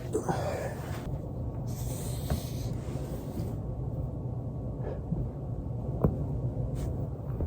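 A person breathing out heavily, with two sharp single cracks, one a little past two seconds and a louder one about six seconds in: joints cracking during foam rolling.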